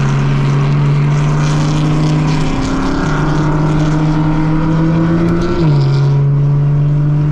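Car engine heard from inside the cabin at speed, a steady drone that climbs slowly in pitch and then drops suddenly with an upshift about five and a half seconds in, over wind and tyre noise.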